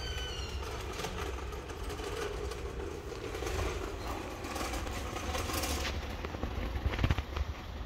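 Steady low outdoor rumble with a few sharp clicks about seven seconds in.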